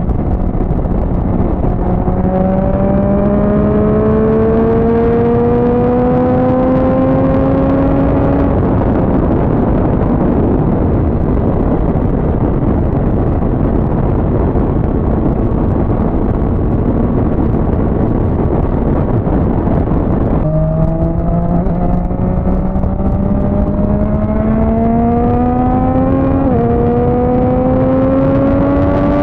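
Motorcycle engine accelerating, its note climbing steadily through a gear over heavy wind rush, then steady wind noise while cruising. Later the engine note starts low and climbs again, with a quick drop and renewed climb about three seconds before the end: an upshift under acceleration.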